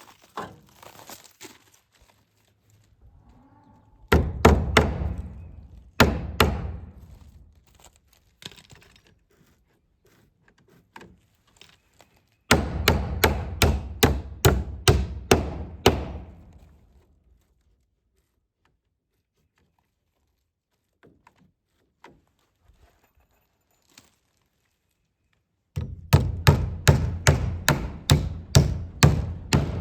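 Hammer driving small nails into wooden batten strips on barn siding: quick runs of blows about three a second, four runs with pauses between them.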